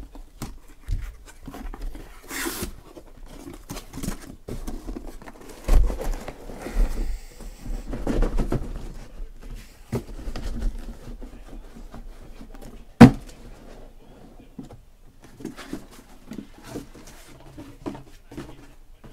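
A sealed cardboard shipping case being opened and unpacked by hand. Cardboard scrapes and rustles, with a tearing sound about two seconds in. Card boxes slide out and are set down with dull thumps, and there is one sharp knock about thirteen seconds in.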